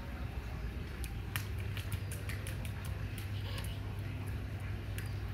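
Small bare feet slapping and splashing through shallow rainwater puddles on wet concrete: a run of irregular little splats starting about a second in, over a steady low hum.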